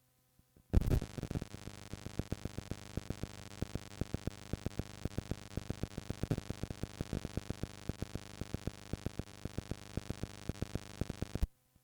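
Crackling static over a steady hiss and low hum from an old cassette tape's playback, with irregular clicks several times a second. It starts abruptly about a second in and cuts off abruptly near the end.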